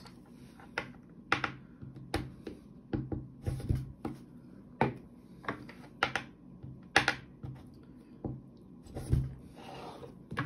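Irregular clicks and taps of plastic shotgun shell hulls, wads and small metal tools being picked up and set down on a desk during hand-loading of slug shells.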